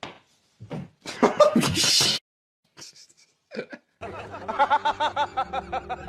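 A person laughing in a quick run of short, even bursts during the second half, after a few brief, separate noises.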